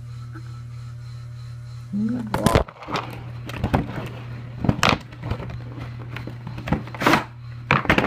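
Toy packaging being handled and opened: a run of sharp crackles and knocks from cardboard and plastic, starting about two seconds in, over a steady low hum.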